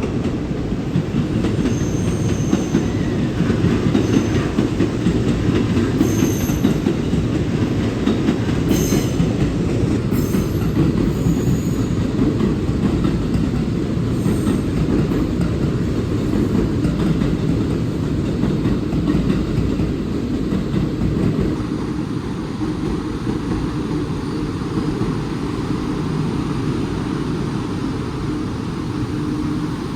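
A train running along a station platform: a steady rumble with wheel clatter over rail joints, brief high wheel squeals and a few sharp clicks in the first half, and the sound easing slightly about two-thirds of the way through.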